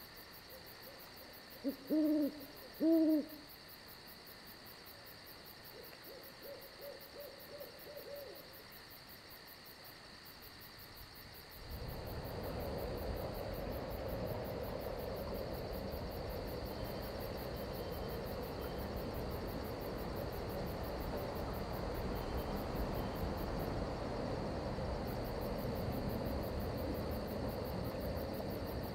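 An owl hoots twice, loud and low, then gives a softer run of quick notes; crickets keep up a steady high chirring behind it. About a third of the way in, a steady rushing noise like rain and wind comes up and holds.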